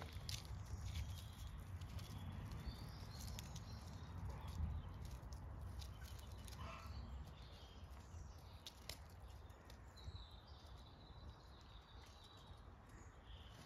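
Quiet outdoor ambience: small birds chirping now and then, scattered light scuffs and clicks of paws on gravel as a puppy and a cat wrestle, over a low steady rumble.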